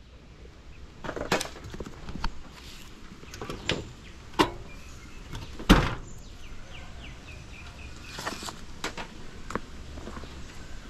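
Sharp metal knocks and clanks from a stainless-steel bee smoker being handled and its lid shut, the loudest a little past halfway. Later come short puffs from its bellows pushing out smoke.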